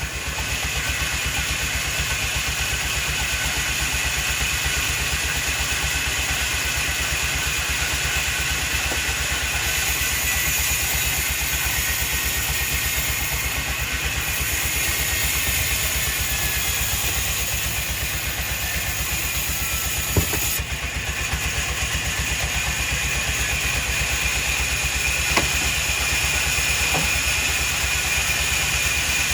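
An engine running steadily at an even speed, with a couple of short knocks partway through.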